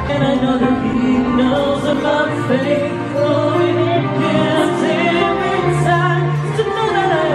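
A man singing karaoke into a handheld microphone over a backing track, with some long held notes.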